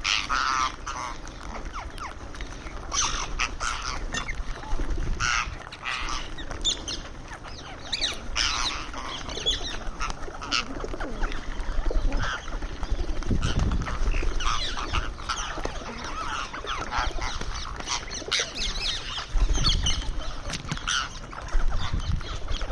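Indian ringneck parrot giving short, harsh squawks and chirps again and again while it feeds, with now and then a low rumble.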